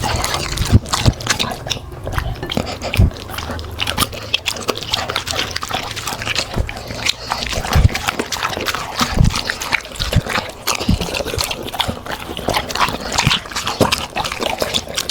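Labrador and golden retriever dogs eating crunchy food: dense, irregular crunching and chewing with scattered low thuds.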